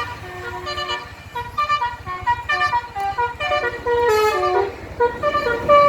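Basuri bus horn playing a melody: a quick run of short pitched notes stepping up and down, with a falling run of notes just past the middle.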